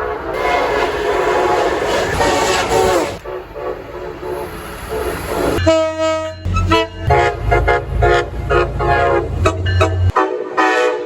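Train horns. A multi-note horn chord sounds for about three seconds and fades. Just before the middle, another horn blast starts abruptly over a low engine rumble, followed by a run of short, choppy horn sounds.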